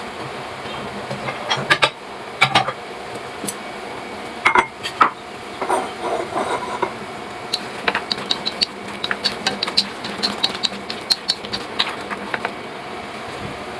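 Utensils clinking, tapping and scraping against dishes in quick, irregular strokes, denser in the second half, over a steady background hiss.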